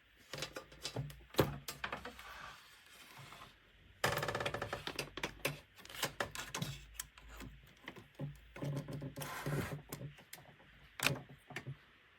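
Hands handling a USB-C docking station and its cables: irregular plastic clicks, knocks and rattles of connectors and casing, with denser clattering twice and one sharp click near the end.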